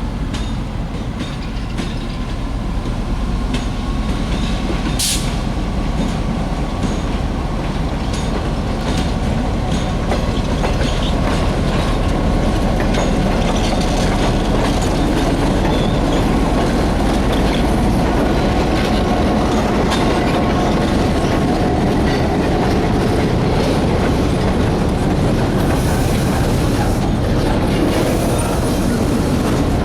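Railroad cars rolling slowly on jointed track during switching moves, wheels clicking over rail joints, growing louder over the first ten seconds or so. One sharp metallic click about five seconds in.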